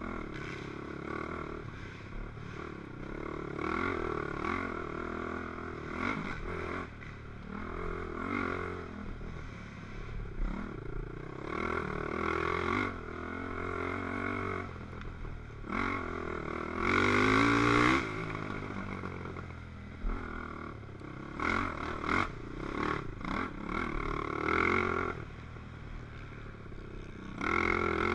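Racing ATV's engine revving up and down as the quad is ridden hard over a rough dirt trail, with the loudest climb in revs about two-thirds of the way through and another at the end.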